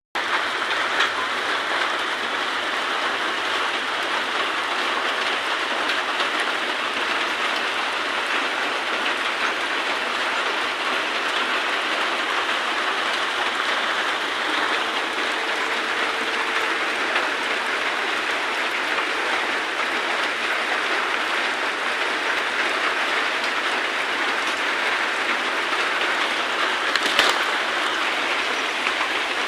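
Steady rain falling, an even continuous hiss of drops, with one sharp tap near the end.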